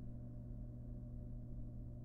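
Steady low hum that stays unchanged throughout, with no calls or movement sounds.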